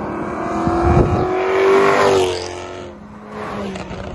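A car speeding past with its engine revving hard: the engine note climbs and grows louder, peaks a little over two seconds in, then drops in pitch and fades as the car goes by.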